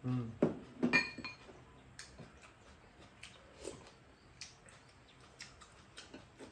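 Metal spoons and chopsticks clinking and tapping against ceramic bowls during a meal. There is a cluster of louder clinks in the first second and a half, one ringing about a second in, then sparse light taps.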